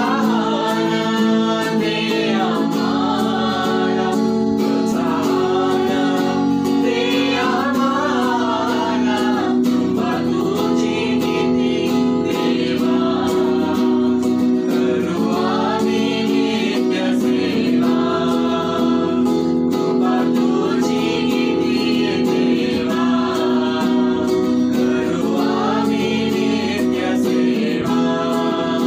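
Marathi Christian worship song: voices singing a melody over steady instrumental accompaniment.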